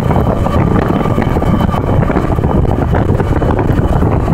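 Steady, loud rumble of a moving vehicle, with wind buffeting the microphone.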